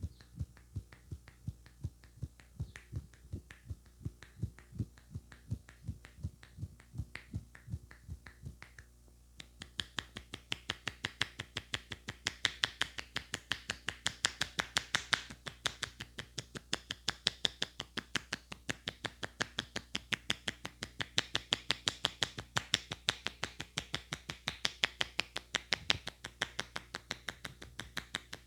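Rhythmic hand strikes of a barber's head massage. For about nine seconds come muffled thumps, about three a second. Then the hands switch to fast, sharp slaps at several a second.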